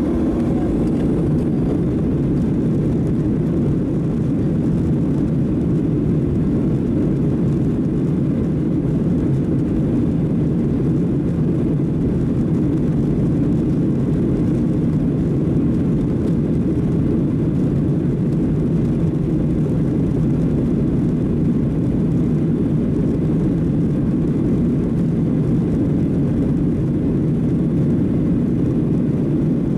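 Steady engine and airflow roar inside the cabin of a Boeing 737-700 with CFM56-7B turbofans, a low, even rumble that holds constant throughout.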